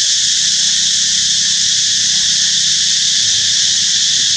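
Steady, high-pitched drone of an insect chorus, unbroken and even in level.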